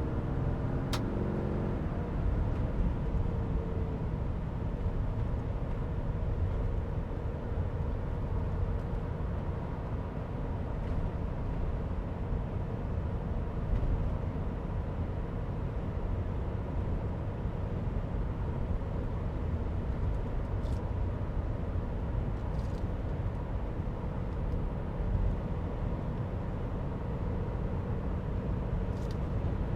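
Interior road noise in a 2022 Ram 3500 HD dually pickup with a 6.7-litre Cummins turbo diesel, driving at speed: a steady low rumble of tyres and road with the engine's hum under it. The engine's pitch shifts during the first few seconds, and there is a light click about a second in.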